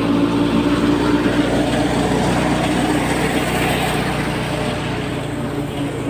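Tractor-powered wheat thresher running at speed: a steady engine hum under the even rush of the threshing machine throwing out straw, a little fainter near the end.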